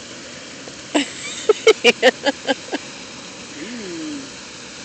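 A person's voice in a quick run of about eight short, high-pitched pulses, then a brief sliding vocal sound near the end.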